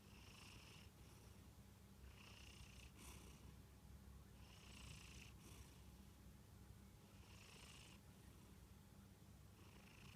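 Munchkin cat snoring faintly in its sleep: a soft, hissy breath about every two and a half seconds over a steady low rumble.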